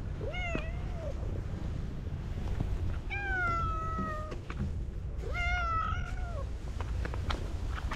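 A cat meowing three times: a short rising-and-falling meow near the start, a longer meow falling in pitch about three seconds in, and another a little after five seconds. Under them is a steady low wind rumble on the microphone.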